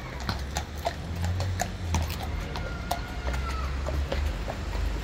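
Shod hooves of Household Cavalry horses clip-clopping at a walk on wet paving, about three or four strikes a second and thinning out towards the end, over a low rumble.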